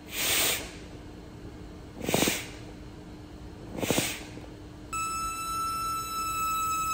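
Three puffs of air, about two seconds apart, as the anesthesia breathing bag is squeezed to push breaths through the circuit into an inflated glove; the last two carry a low fluttering buzz. About five seconds in, a steady electronic tone begins.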